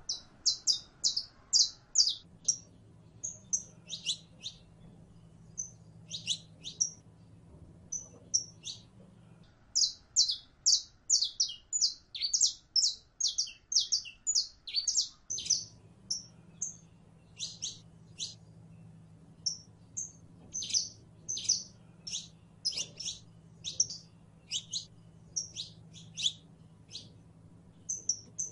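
Saffron finch in full song: fast runs of high, sharp chirping notes, several a second, broken by short pauses between phrases.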